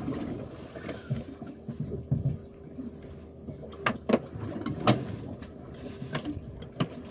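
Fishing boat drifting at sea: a low rumble of water and wind under a faint steady hum, with a few sharp knocks on the boat about four and five seconds in.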